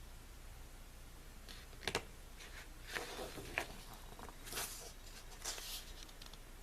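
Pages of a paper photobook being turned and handled: a couple of sharp taps about two seconds in, then several brief papery rustles and page flips.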